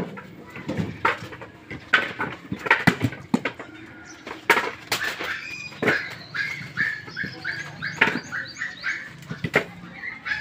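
Husked coconuts knocking against one another as they are dropped by hand into woven bamboo baskets, a sharp knock every second or so. From about halfway through, a bird chirps in a quick run of short calls.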